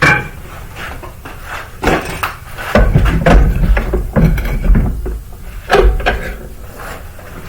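A string of knocks, clicks and bumps from objects being handled and set down, with a heavy low rumbling stretch in the middle and another thump near the end.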